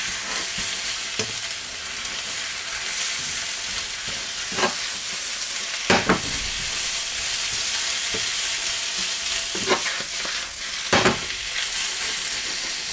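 Vegetables and chili powder sizzling in hot oil in a wok as they are stir-fried, with a steady hiss. A spatula scrapes and knocks against the wok now and then, about six times.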